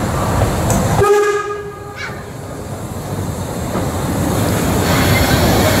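Steam whistle of a narrow-gauge tank locomotive giving one short blast of about a second, a pitched note with several overtones. A steady noise follows and grows louder toward the end.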